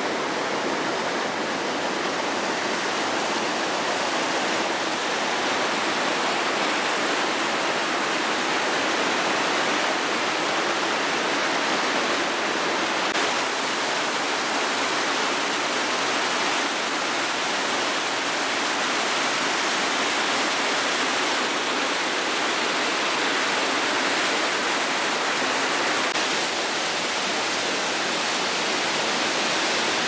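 Mountain stream rushing down rock cascades and a waterfall into a pool: a steady, unbroken rush of white water.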